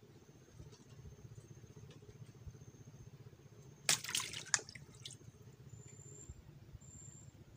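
A brief splash of water about four seconds in, loud for well under a second, over a steady low rumble.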